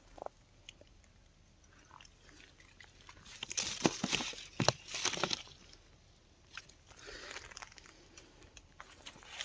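Crunching and rustling in a few bursts with sharp snaps, loudest between about three and a half and five and a half seconds in, then a softer rustle near the end.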